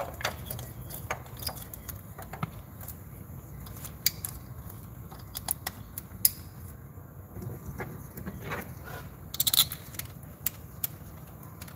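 Scattered small clicks, taps and rattles of hands handling ignition coils and a spark plug tool on a car engine, with a quick cluster of clicks about nine and a half seconds in, over a low steady hum.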